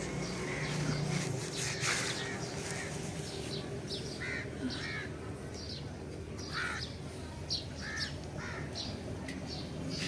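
Birds calling: a string of short, harsh chirps repeated irregularly, several times every couple of seconds.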